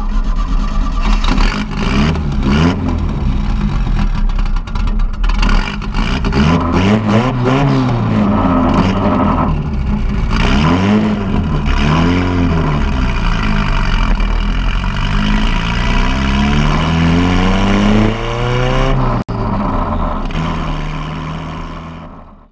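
Exhaust of a turbocharged Datsun 240Z, picked up close to the tailpipe, as the engine revs up and down several times. It then makes one long rising climb, drops to a steadier lower note and fades out near the end.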